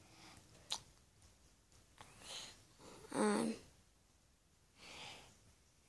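Quiet handling of a plastic DVD case: a sharp click a little under a second in and soft rubbing noises, with a child's breathing and one short wordless voice sound a little over three seconds in.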